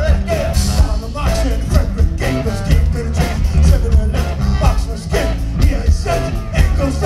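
Live band playing a loud song with a steady beat, electric guitars and a lead singer, heard from the audience.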